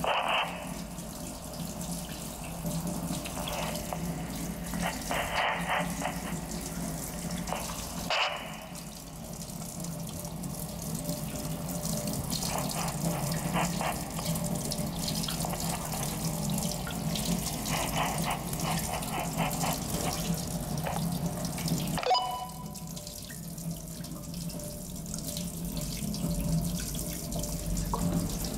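Kitchen faucet running, a steady stream of water splashing into a stainless steel sink, with a few short crackles over it.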